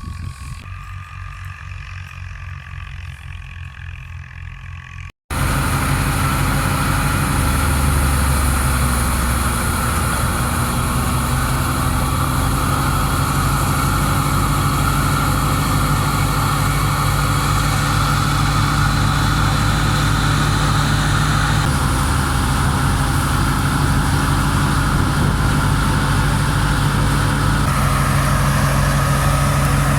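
A tractor engine runs steadily. About five seconds in, the sound cuts to a much louder steady machine noise: the tractor-driven wheat thresher running at speed over the engine's drone.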